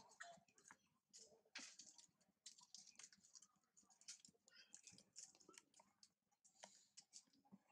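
Faint, irregular crackling and rustling of dry leaf litter as macaques walk over it.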